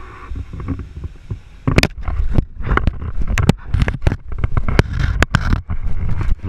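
An alligator biting on a camera: from about two seconds in, a dozen or so sharp, irregular knocks and clacks of its teeth and jaws on the camera housing. Underneath there is a low rumble of water and handling noise on the microphone.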